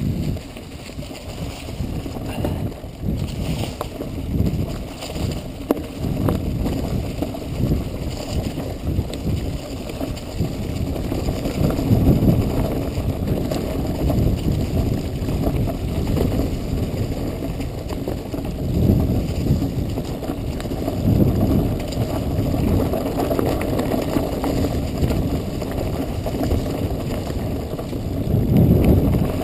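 Mountain bike riding down a rough, leaf-covered dirt trail: tyres rolling over dirt and leaves with the bike rattling and knocking over bumps, and wind noise on the microphone surging louder as speed picks up.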